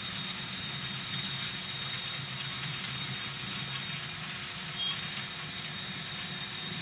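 Model train running on the layout: a steady low rumble with a few brief, faint high squeals.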